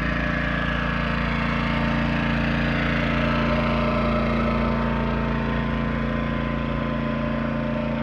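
Yamaha 2000is portable inverter generator running steadily with an even engine hum.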